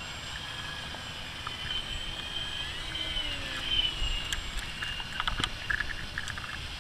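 RC plane's motor and propeller whining in flight, the pitch drifting up and down as it flies, over low wind rumble on the microphone.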